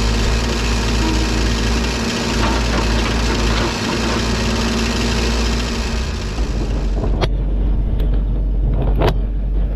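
Excavator's diesel engine running steadily, with a strong low hum. About seven seconds in, the high hiss drops away, and three sharp knocks follow, the last and loudest near the end.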